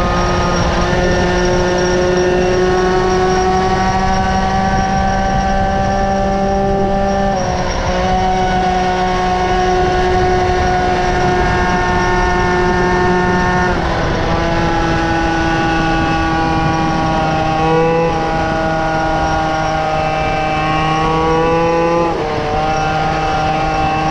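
Peugeot 103 MVL moped's 50cc two-stroke engine with an MR exhaust, running at high revs with a steady note that dips and rises slightly every few seconds.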